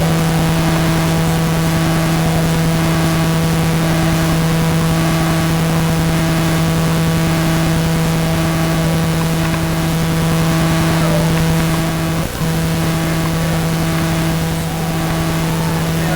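A steady, loud buzzing hum with a stack of overtones over a bed of hiss, dropping out for a moment about twelve seconds in.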